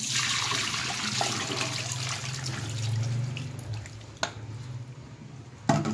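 Soaking water and sliced potatoes poured from a bowl into a metal mesh strainer in a stainless steel sink, the water rushing and splashing through the mesh for about four seconds as it drains off the slices. Then a click, and a sharp knock near the end.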